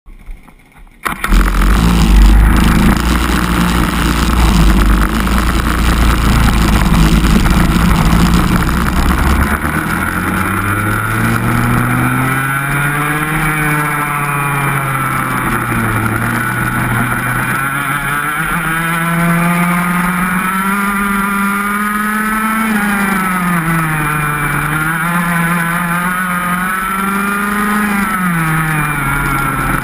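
125 cc two-stroke racing kart engine heard from on board the kart. It starts up about a second in and runs with a heavy low rumble for several seconds, then from about ten seconds in revs up and down repeatedly as the kart accelerates and lifts off around the track.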